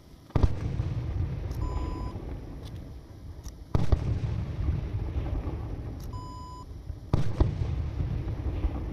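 Fireworks going off: three sharp bangs about three and a half seconds apart, each followed by a low rumble that fades away. Two short electronic beeps sound between the bangs.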